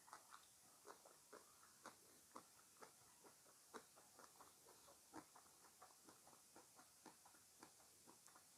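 Close-miked chewing of fruit: a steady run of soft, irregular mouth clicks, a few each second.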